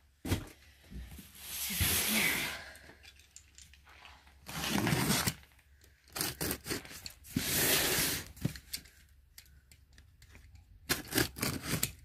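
Utility knife slitting the packing tape on a cardboard box: three drawn-out tearing, scraping strokes a few seconds apart, then a quick run of sharp clicks and rustles near the end as the cardboard flaps are handled.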